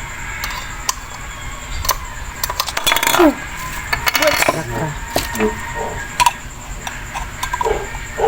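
Small hard clicks and rattles of plastic parts being handled and fitted together while a mini vacuum cleaner is assembled, with a dense cluster of clicks about three seconds in and more near the middle.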